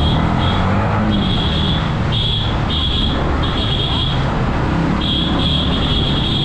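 Yamaha MT-15's single-cylinder engine running at low lane speed, with a high-pitched electronic horn beeped about seven times in short, irregular blasts, the last one held for over a second.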